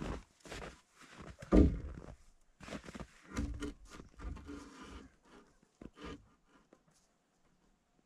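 Footsteps crunching in snow, with knocks and thumps of a sawn wooden rafter board being handled and set onto the chicken run's wooden frame; one heavy thump about a second and a half in is the loudest.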